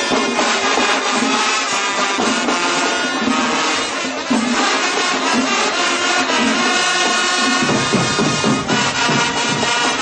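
School marching band playing: trumpets and other brass over drums. Deeper low notes join about three-quarters of the way in.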